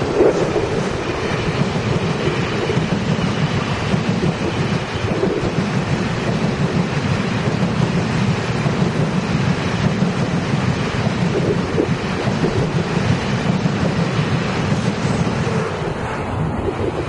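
TRA PP Tze-Chiang (E1000-series push-pull) express train passing close by: a steady rumble of its coaches' wheels running on the rails.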